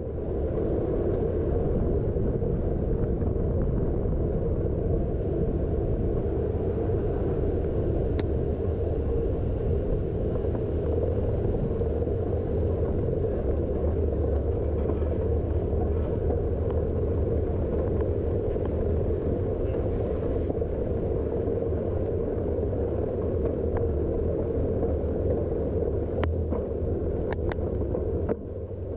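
Steady low rumble of city street ambience heard from a moving camera, with a few faint short clicks near the end.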